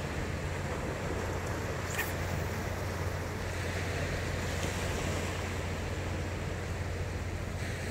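Steady outdoor wind and surf noise at the shoreline, with a low steady rumble underneath and a single brief click about two seconds in.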